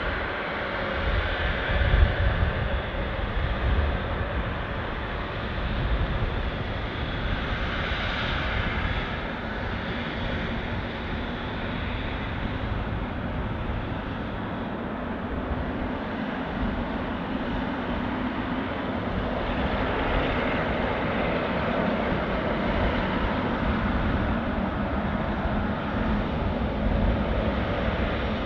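The twin GE90 turbofan engines of a Boeing 777-300ER airliner running as it rolls slowly on the ground: a steady jet roar and whine that grows a little louder in the last third.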